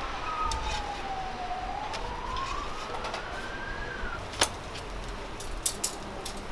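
A siren wailing, one long tone that falls in pitch and then rises again over about four seconds, over steady background noise. A sharp click just after the siren stops, and two more close together near the end.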